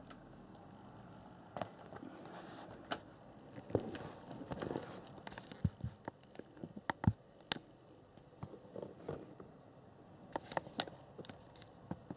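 Handling noise: scattered light clicks, taps and rustling, with a few sharper knocks in the middle and near the end.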